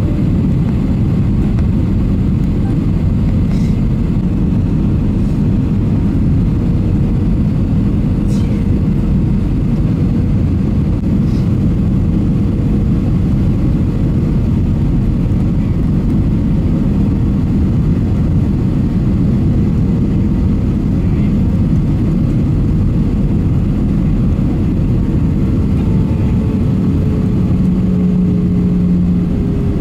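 Airliner cabin noise on final approach: a steady low rumble of the jet engines and airflow past the extended flaps, with a steady engine tone that slides slightly lower near the end, where a deeper hum also comes in.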